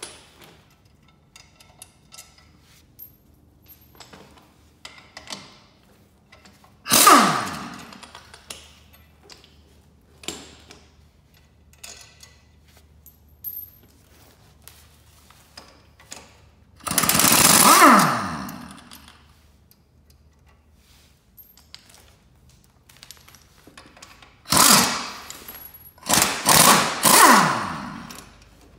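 Pneumatic air impact wrench breaking loose the track-wheel bolts on an Altoz TRX tracked mower. It fires in short loud bursts: one about seven seconds in, a longer one around seventeen seconds, and several quick ones close together near the end. Each burst ends in a falling whine as the air motor spins down, with light clicks of socket and bolts in between.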